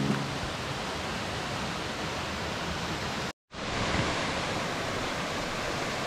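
Steady, even rush of a waterfall pouring into a rock pool. The sound drops out completely for a moment just past halfway, then a similar steady rush of water picks up again.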